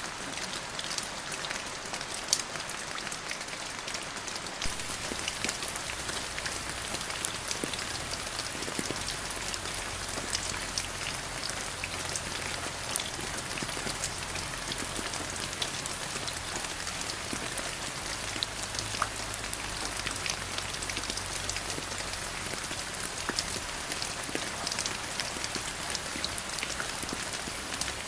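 Steady rain falling, with many individual drops ticking sharply on a hard surface among the even patter.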